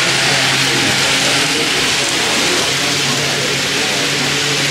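Steady background noise of a crowded model railroad room: an even hiss with faint murmured voices and a low steady hum underneath.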